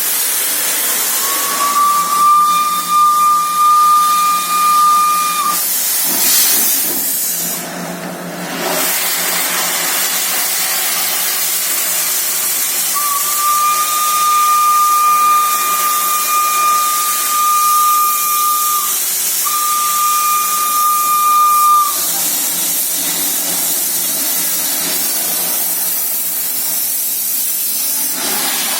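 Steam locomotive whistle blowing three blasts over a steady hiss of escaping steam: a first blast that slides up into pitch and holds for about four seconds, then a long six-second blast, broken off and followed at once by a short one.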